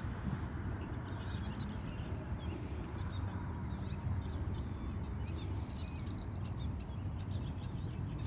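Small birds chirping and twittering in short, repeated calls over a steady low rumble.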